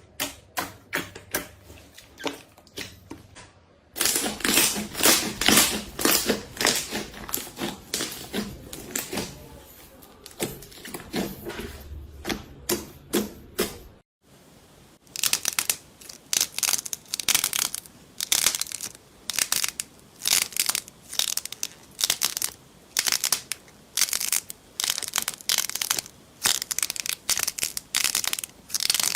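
Slime being squeezed and pressed by hand close to the microphone: dense runs of crackling clicks and sticky pops. The sound changes suddenly twice, about four seconds in and again around fourteen seconds in.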